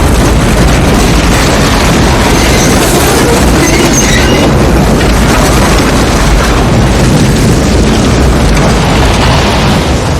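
Film sound effects of a tornado passing close by: a loud, continuous rush of wind with a deep rumble underneath, easing slightly near the end.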